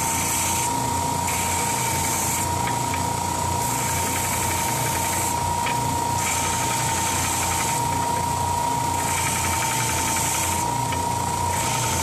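Ridgid oscillating edge belt sander running with a steady whine. The end of a bubinga pen blank and its glued-in tube is pressed against the belt again and again, and each contact of a second or two adds a hissing grind. This is the blank's ends being sanded flush with the tube.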